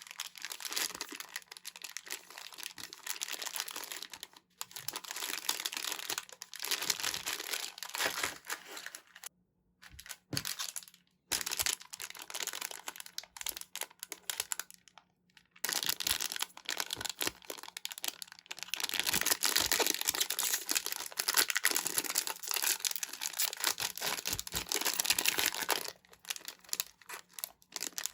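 Packaging of surprise trading-card packs being handled and torn open: a dense crinkling and crackling in long stretches, broken by a few short pauses.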